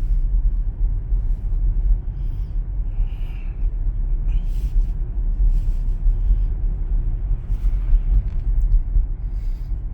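Steady low rumble of road and tyre noise heard inside the cabin of a Tesla Model Y, an electric car with no engine note, rolling at about 25 mph.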